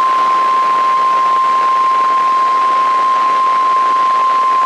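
NOAA Weather Radio warning alarm tone: one steady, loud 1050 Hz tone over heavy radio hiss, the signal that a warning broadcast follows.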